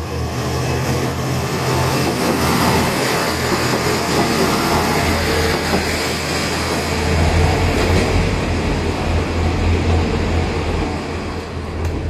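A 1000-type diesel railcar accelerating away through a level crossing: its diesel engine running under load over steady train noise with a low rumble.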